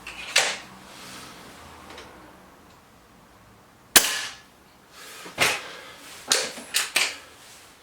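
Webley Xocet break-barrel spring air rifle firing once about four seconds in, a sharp crack. Several shorter clicks and clunks from handling the rifle come before and after it.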